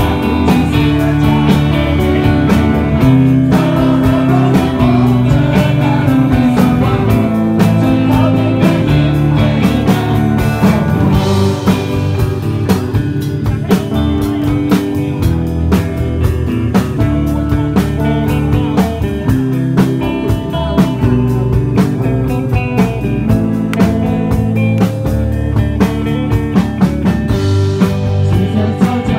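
Live rock band playing loudly: electric guitars over a drum kit keeping a steady beat.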